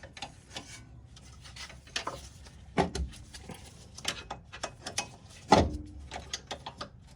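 Flat-blade screwdriver prying against metal suspension parts to push a part out: scattered scrapes and clicks, with louder knocks about three and five and a half seconds in.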